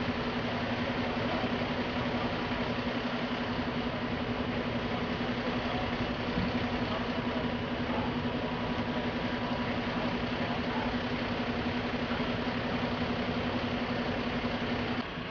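Fire engine running steadily: a constant engine drone with an unchanging low hum, stopping abruptly near the end.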